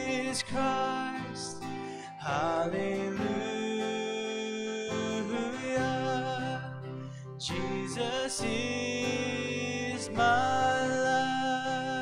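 A man singing a slow worship song, accompanying himself on a strummed acoustic guitar.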